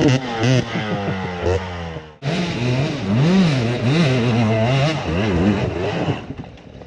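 Dirt bike engines revving hard on a steep hill climb: first a bike revving high as its rear wheel spins in the dirt, then, after a sudden cut about two seconds in, another bike's engine rising and falling in repeated blips of throttle as it climbs. The engine sound fades near the end.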